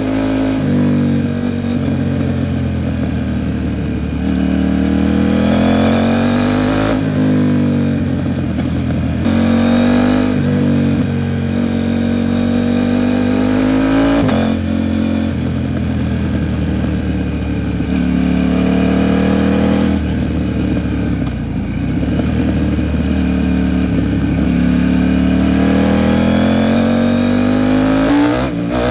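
KTM 790 Duke's parallel-twin engine through an Arrow Pro Race titanium exhaust, accelerating hard on the road. The pitch climbs, then drops sharply at each upshift, several times over.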